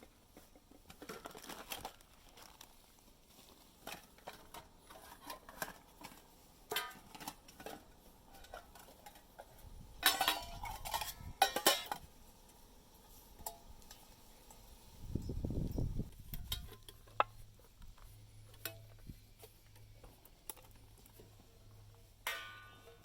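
Metal camp cookware and utensils clinking and being handled: scattered light knocks and clinks, with a cluster of louder ones about halfway through and a brief low rumble a few seconds later.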